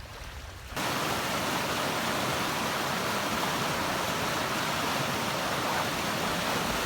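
Steady rushing of running water, a constant even hiss that starts abruptly under a second in.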